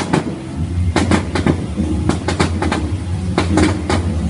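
Fireworks going off: an irregular series of sharp bangs and crackles, sometimes several in quick succession, over a steady low hum. The fireworks are fired cue by cue from an electronic firing console.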